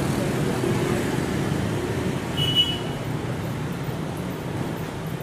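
Steady low engine rumble, with a brief high tone about two and a half seconds in.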